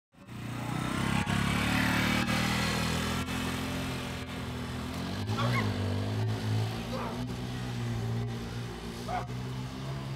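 Motorcycle engine running steadily as it rides past.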